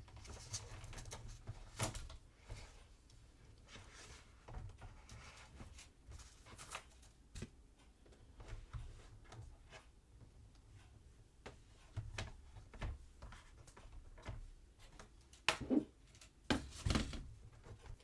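Handling noise from a plastic tablet case and an iPad: scattered light clicks, taps and rustles, with a few louder knocks near the end.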